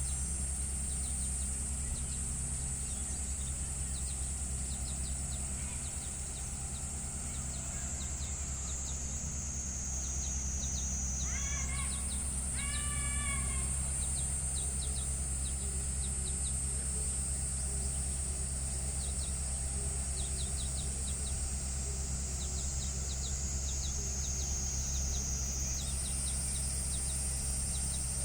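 John Deere tractor engine running steadily under a high whine that slowly falls in pitch and jumps back up twice. Two short bird calls come about halfway through.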